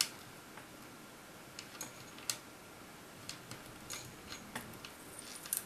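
Plastic pony beads clicking against each other as they are handled and threaded onto string: light, irregular clicks, with a sharper one right at the start.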